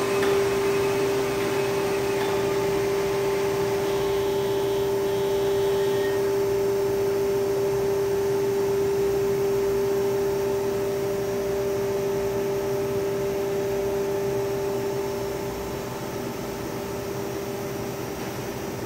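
Océ Arizona flatbed printer running as it prints: a steady machine hum with a strong steady tone, which drops a little in level about fifteen seconds in.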